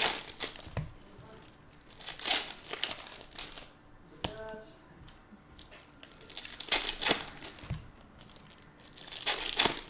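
Foil trading-card pack wrappers crinkling and tearing as packs are ripped open, in repeated bursts of rustling.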